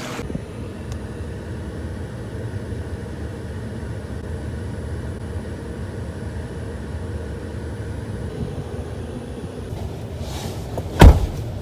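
Steady low rumble of a running vehicle, with one sharp thump near the end.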